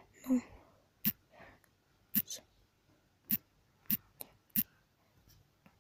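Fingertip taps on a smartphone touchscreen while typing on the on-screen keyboard: sharp single clicks about one a second, two close together a little past two seconds in. A brief low vocal sound comes just after the start.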